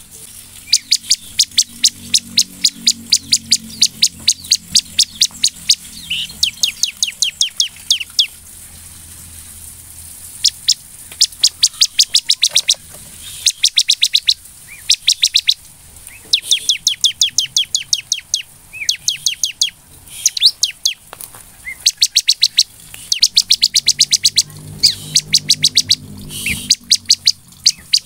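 Bar-winged prinia (ciblek) singing: long runs of sharp, high chirps repeated rapidly, about four a second, broken by short pauses.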